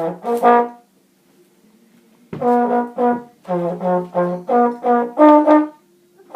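Trombone played hands-free in short, separate notes: a couple right at the start, then after a pause of almost two seconds a run of about nine notes jumping between a few pitches.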